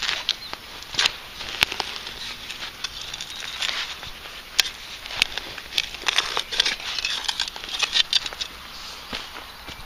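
A digging spade cutting into grass turf and levering out a clod of soil: irregular crunching and scraping with many sharp clicks.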